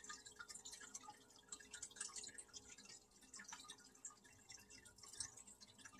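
Near silence: room tone with a faint steady hum and many small, irregular faint clicks.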